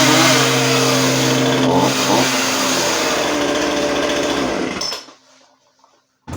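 McCulloch CS35 two-stroke chainsaw running and being revved, its pitch rising and falling, then shut off abruptly about five seconds in.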